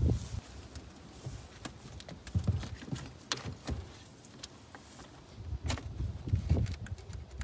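Scattered hard knocks and clicks of a car battery being handled and set down into its tray in the engine bay, with bursts of low rumble in between.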